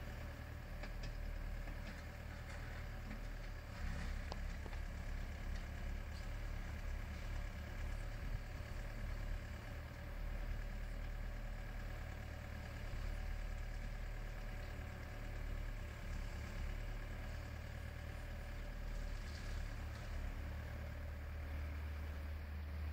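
Volvo compact crawler excavator's diesel engine running steadily at a low hum while the machine works its arm and bucket and slews.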